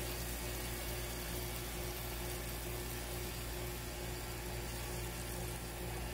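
Burgers and buttered buns sizzling steadily on a propane flat-top griddle, over a low steady rumble.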